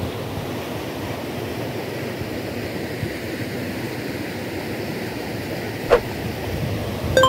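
Steady rush of a small, fast mountain stream running over rocks. About six seconds in there is a single sharp click, and just before the end a brief chime-like tone, from an on-screen subscribe-button sound effect.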